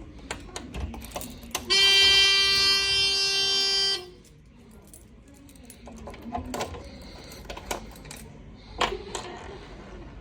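A fire alarm horn sounds one steady, loud buzzing tone for about two seconds, starting a couple of seconds in. Scattered clicks and rattles of a device being handled come before and after it.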